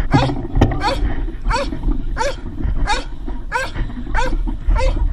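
A dog yelping over and over in a steady rhythm, short high calls about three every two seconds, over a low rumble.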